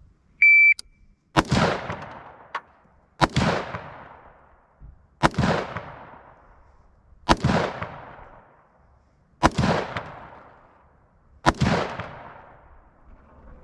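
A shot timer gives one short high beep, then six single gunshots follow at a steady pace about two seconds apart, each trailing off in echo. It is the start signal and a timed string of fire.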